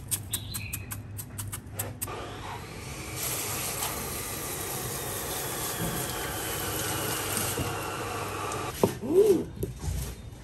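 Steady rush of tap water spraying, with rapid clicks in the first couple of seconds. Near the end, a sharp knock and a short squeak.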